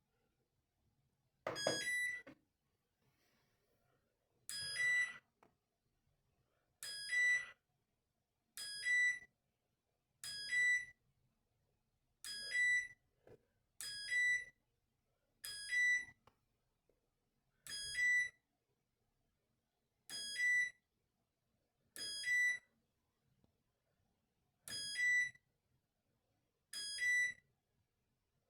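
Valberg WF 612 A washing machine's control panel beeping: a click and a short, high electronic beep about every two seconds, about fourteen times, as the programme selector is stepped through the wash programmes.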